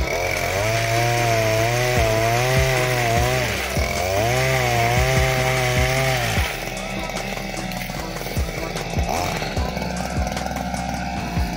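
Small two-stroke engine of a Cantas motorised oil palm cutter running. It is held at high revs twice, with a brief dip after about three seconds, then drops back to a lower, rougher running about six seconds in.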